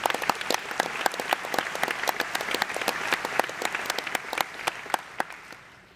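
Audience applauding, many hands clapping, thinning and fading away near the end.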